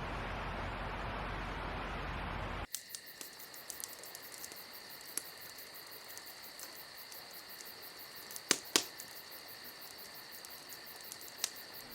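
A steady rushing noise that cuts off suddenly under three seconds in, giving way to insects chirping in a steady, shrill, fast-pulsing chorus. Two sharp clicks come close together about two-thirds of the way through.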